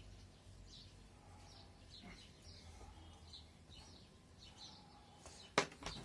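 Faint birds chirping now and then in the background, then two sharp clicks close together near the end.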